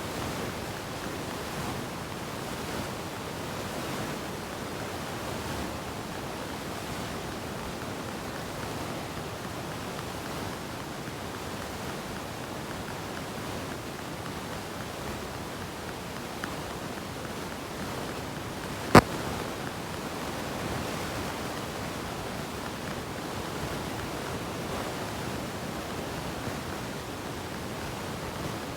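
Steady background hiss, with a single sharp click about two-thirds of the way through.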